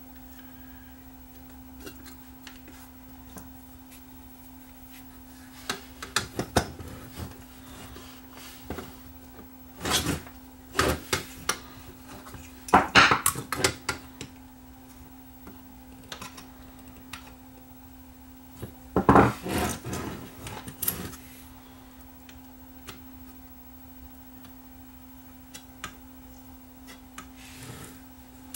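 Handling noise from work inside an opened VCR: several short bursts of clicks, knocks and clatter as hard parts are moved and fitted. The loudest bursts come about halfway and two-thirds of the way through, over a steady low hum.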